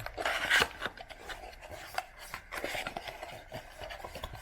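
A cardboard mini box of trading card packs being opened by hand: uneven rubbing and scraping of cardboard, loudest in the first second, with a few light taps and clicks.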